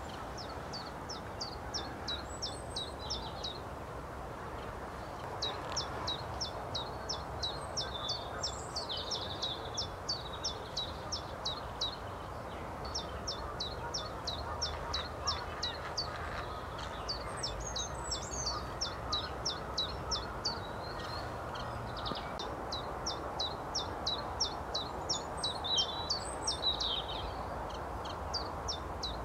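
Common chiffchaff singing: a series of short, high notes repeated about three a second, its typical 'chiff-chaff' song, in phrases of several seconds with brief pauses between them.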